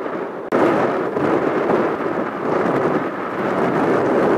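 Engines of an Air France Airbus A321 taxiing at close range, a steady roar of jet noise. The roar jumps abruptly louder about half a second in, at an edit from a distant runway view.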